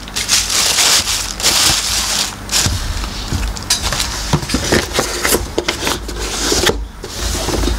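Tissue paper and packaging crinkling and rustling in irregular bursts as the contents of a cardboard shoebox are handled, with a few light knocks from the box being moved.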